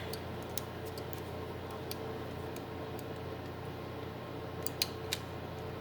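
Faint, irregular small clicks and taps of PS4 controller plastic parts being handled and fitted together, over a steady low hum.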